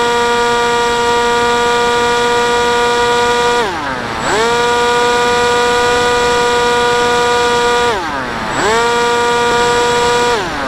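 FPV plane's motor and propeller running at a steady high pitch with wind rush, heard from the onboard camera. Twice the pitch slides down and comes back up within under a second, as the throttle is cut and reopened, and it falls again at the very end.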